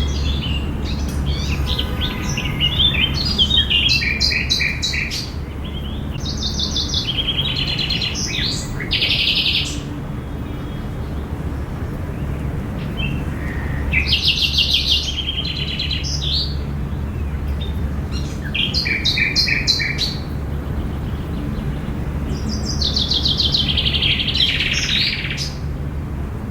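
Songbirds singing, in trilled phrases of a second or two that come back every few seconds, over a steady low background rumble.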